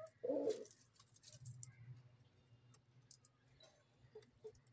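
Chickens: one short, loud squawk about half a second in, then faint scattered clicks of beaks pecking at the dry dirt floor, with two soft clucks near the end.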